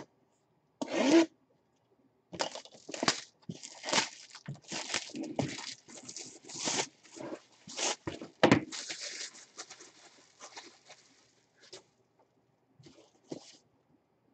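Plastic shrink wrap being torn and peeled off a cardboard trading-card box: a run of irregular crinkling rips. They are loudest in the first two-thirds and thin out to a few faint rustles near the end.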